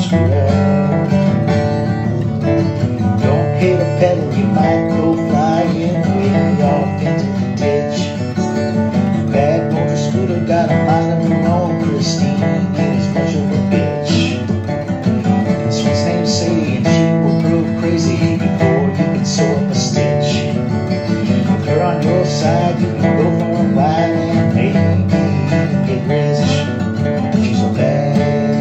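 Instrumental guitar break of a rock song: a guitar lead with notes that slide up and down over a steady strummed accompaniment and bass.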